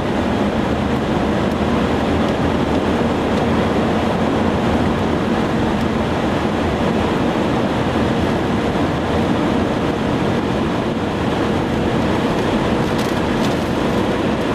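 Steady roar of wind from a very large tornado as it passes close enough to glance the vehicle, a dense, continuous rushing noise with no breaks.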